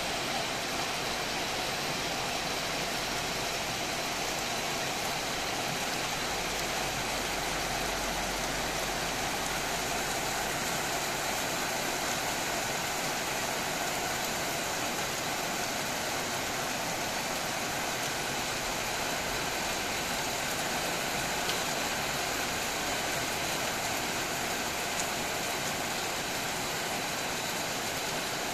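Steady rain falling, an even hiss without let-up, with a faint steady tone running underneath.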